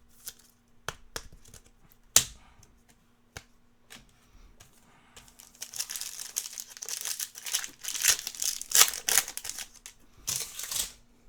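Trading-card packs and cards being handled: a few sharp clicks and taps, then a few seconds of crinkling and rustling, as a foil pack wrapper is worked and cards are slid and shuffled. Another short rustle comes near the end.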